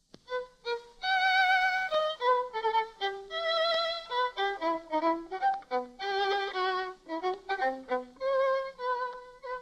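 Solo violin playing a slow gypsy melody, its long notes held with a wide vibrato.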